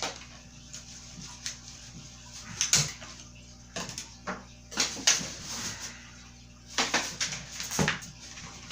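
Cardboard packing being pulled and stripped off a new bike: irregular rustles, rips and scrapes, the loudest about a third of the way in, around the middle and near the end.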